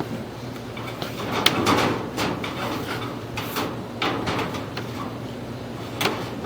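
Irregular scraping and knocking of a duct inspection camera being pushed along sheet-metal ductwork.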